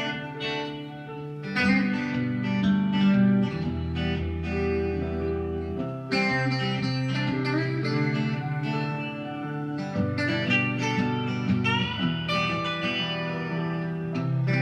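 Instrumental music with held notes that change every second or two, and a new passage beginning about six seconds in.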